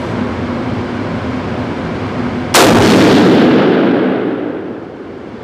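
A single rifle shot about two and a half seconds in, its report echoing and dying away over a couple of seconds in the enclosed indoor range.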